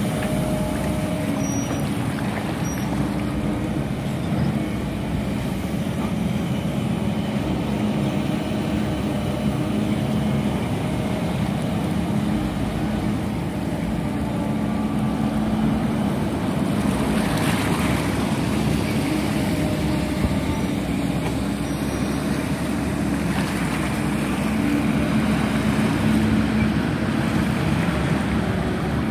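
An engine running steadily, a low drone that holds an even pitch, with the level swelling slightly a few times.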